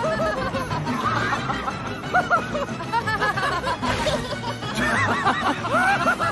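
Cartoon characters giggling and chuckling in many quick, short laughs over background music.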